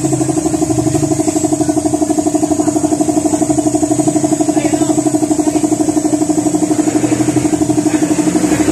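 A small engine idling steadily, with a fast, even pulse.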